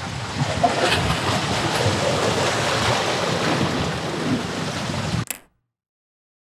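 Ocean surf washing on a rock jetty, mixed with wind buffeting the microphone, as a steady rushing noise that cuts off abruptly to dead silence about five seconds in.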